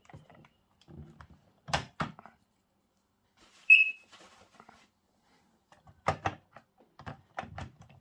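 Clicks and knocks of a heat alarm's housing being unclipped and slid off its mounting base with a screwdriver. About four seconds in, the alarm gives one short, high chirp, the loudest sound here.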